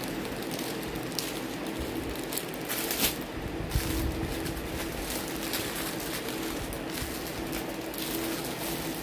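Steady hum and air noise of an electric fan running in a small room, with a few brief rustles of cotton saree cloth being handled, the longest about three seconds in.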